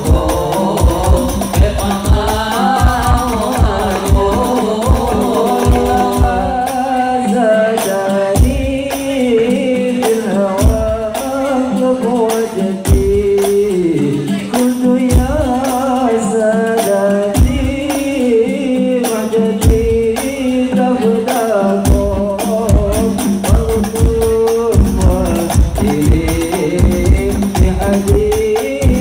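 Indonesian hadrah ensemble performing an Arabic sholawat song: male voices singing into microphones over rebana frame drums and a bass drum beating a steady rhythm. The drum strikes drop out briefly a few times, leaving the voices nearly alone.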